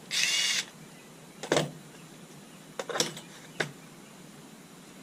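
A short rasping whirr about half a second long, then several sharp clicks and knocks, as small hard parts of a trolling motor plug and its mounting plate are handled.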